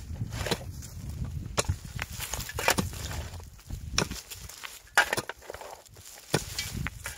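A pickaxe striking rocky soil and roots while a shovel blade scrapes through earth and stones: sharp knocks about once a second.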